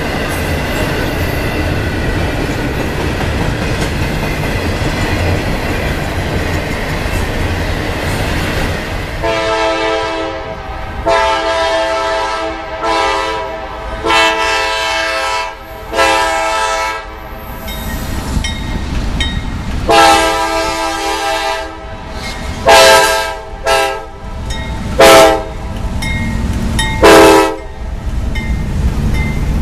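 A freight train rolling past with a steady rumble and clatter of wheels, then, about nine seconds in, a GE C40-8W diesel locomotive's multi-chime air horn sounding a long series of long and short blasts, the later ones short and quick.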